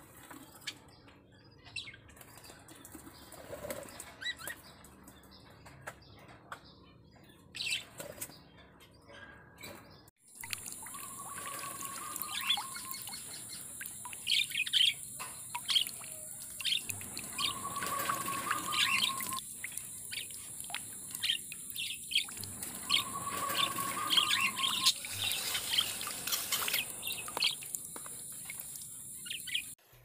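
A cockatiel bathing in a plastic water dish: faint splashing and wing fluttering. About a third of the way in the sound changes to a steady high hiss with birds chirping again and again.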